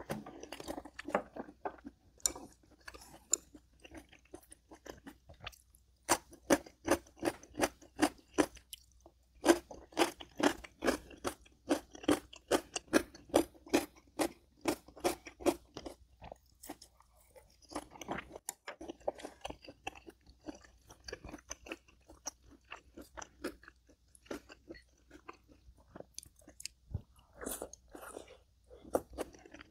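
A person chewing crunchy food with audible crunching, in runs of about three chews a second broken by short pauses; the chewing is loudest in the middle stretch.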